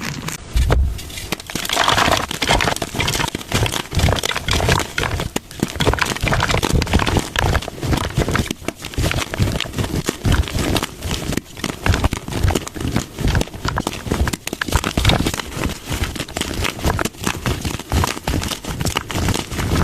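Blocks of gym chalk being crushed, a dense run of crunches and crumbles.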